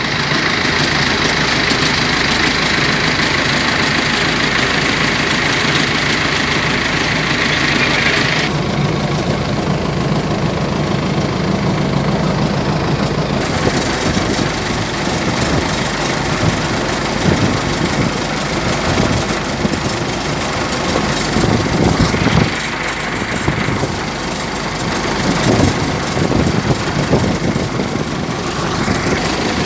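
Boat engine running steadily under way, with a loud steady hiss over it that shifts in tone a couple of times.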